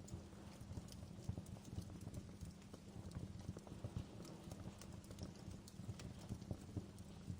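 Wood fire burning in a fireplace, crackling with irregular small pops and snaps over a steady low rumble.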